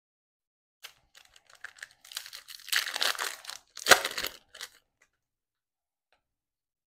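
A foil trading-card pack wrapper (Panini Absolute Football) being torn open by hand: crinkling and ripping, with the sharpest, loudest tear about four seconds in.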